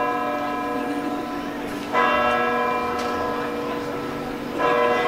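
A single large tower bell tolling slowly, the same note struck about every two and a half seconds, twice within these seconds, each stroke ringing on and fading before the next.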